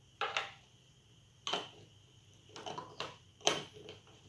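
A small container from a mini volcano kit being shaken by hand, giving a series of irregular short knocks and rattles, about seven in all.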